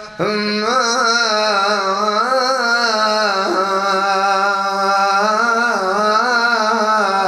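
A man chanting a long, wavering melismatic phrase into a microphone, the opening invocation of a majlis recitation, beginning just after a short breath. A steady low tone sits under the voice throughout.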